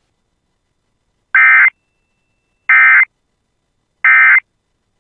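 Emergency Alert System end-of-message data tones: three short, identical bursts of warbling SAME digital tones about a second and a half apart, marking the close of the alert.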